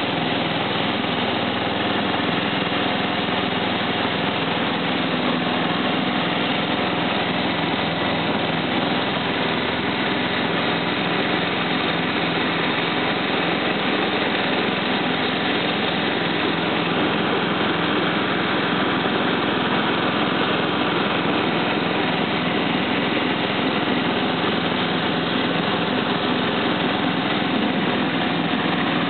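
Simplicity 4211 garden tractor's engine running at a steady speed while the tractor drives along.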